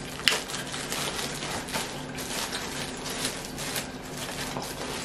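Clear plastic wrapper crinkling and crackling in the hands, in irregular small clicks with one sharper snap about a quarter second in, over a faint steady low hum.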